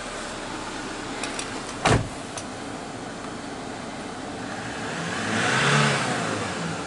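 Kia Bongo III truck's engine idling, heard from inside the cab, then revved once in neutral to about 3,500 rpm and let fall back near the end. A single sharp knock about two seconds in.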